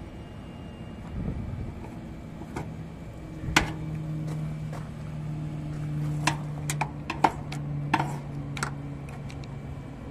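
Sharp metallic clicks and taps, about half a dozen, of a screwdriver and wiring handled against the sheet-metal control box of a rooftop package air-conditioning unit. A steady low hum comes in for several seconds in the middle.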